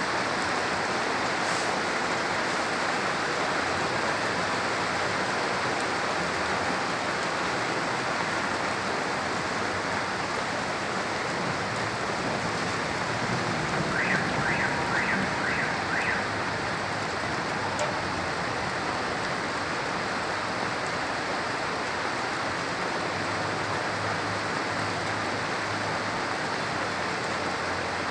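Heavy rain falling steadily, an even hiss of rain on surfaces. About halfway through, a brief run of about six short high beeps.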